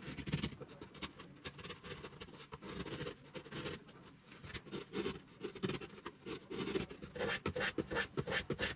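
Hand chisel paring thin shavings off mahogany in short scraping strokes, then a hand plane taking quick back-and-forth strokes across the wood near the end.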